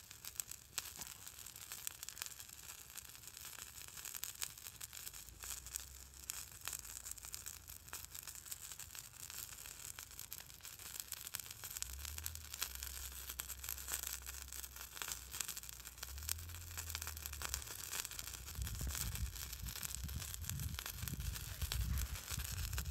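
Small twig fire started with a Fire-Nug fire starter crackling and sizzling on the ice, dense fast crackles throughout. Low rumbles come in over the last few seconds.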